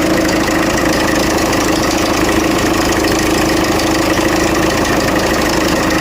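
Land Rover Freelander engine idling with a steady, nasty mechanical noise from the engine bay, which the mechanic suspects comes from the alternator belt and its tensioner.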